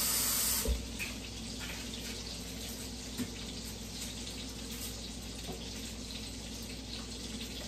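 Kitchen tap running hard into a sink, shut off with a knock less than a second in. After that only a low steady background hiss remains, with a couple of light knocks.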